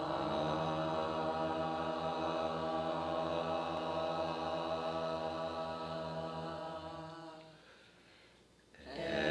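Low chanted drone on a film soundtrack: one deep held note, rich in overtones, that fades away about seven seconds in, then a new held note starts near the end.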